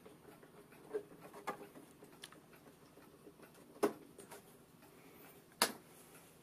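Light clicks and knocks as an octal dummy plug is worked out of its socket on the rear panel of a reel-to-reel tape deck. A few faint ticks come first, then two sharp clicks, one about four seconds in and a louder one near the end.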